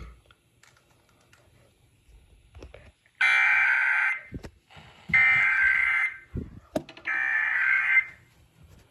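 Emergency Alert System SAME header: three identical bursts of rapid digital data tones, each about a second long and about a second apart, starting about three seconds in. They encode the alert header of a required weekly test.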